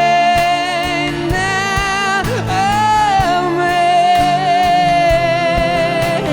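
Live band playing, taken straight from the soundboard: a singer holds long, wavering notes over drums and backing instruments.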